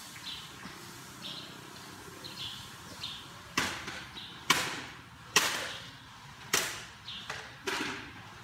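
A small bird chirps repeatedly, about twice a second. From about three and a half seconds in, five loud, sharp swishing noises come one after another, each fading quickly.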